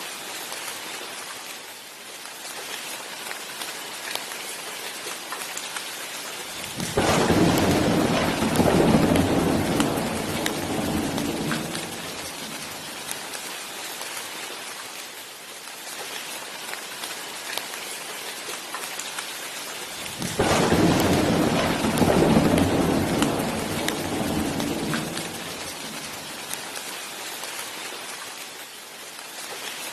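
Steady rain falling, with two rolls of thunder, one about seven seconds in and another about twenty seconds in, each rumbling for several seconds and then fading.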